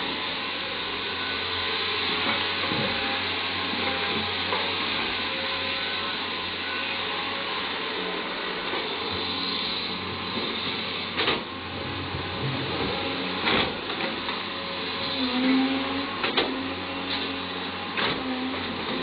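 Caterpillar 320D hydraulic excavator running steadily while it swings and digs coal. A few sharp knocks in the second half as the bucket bites into the coal.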